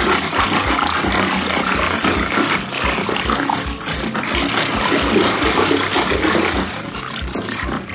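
Muddy water sloshing and splashing in a plastic tub as it is churned vigorously, a continuous rushing slosh that eases slightly near the end.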